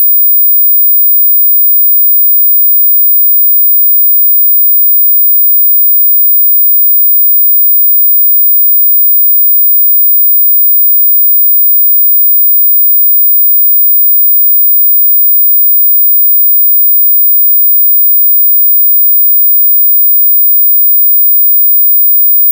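A dog-whistle tone: one very high-pitched pure tone, loud and held perfectly steady without a break.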